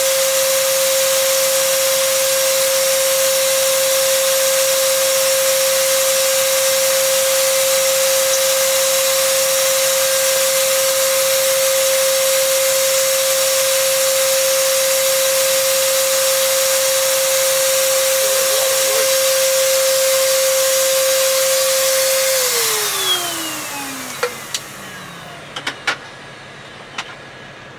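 A small high-speed electric motor runs steadily with a whine and a loud hiss, then is switched off about 22 seconds in. Its whine falls in pitch as it winds down over a couple of seconds, and a few clicks and knocks follow.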